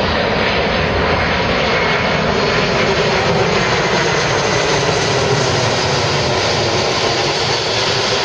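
Boeing C-17 Globemaster III military transport flying low overhead, its four turbofan jet engines making a loud, steady roar, with a slow drop in pitch as it passes.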